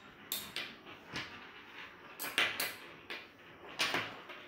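Magnetic toy sticks snapping onto steel connector balls and being set down on a wooden tabletop: a series of sharp, irregular clicks and taps, about eight or nine of them.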